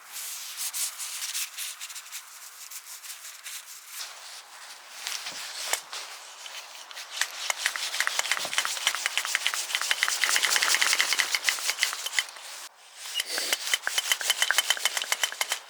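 A hand shock pump being worked on a mountain bike's air suspension: rapid, rhythmic pumping strokes, several a second, building up in the second half with a short break near the end.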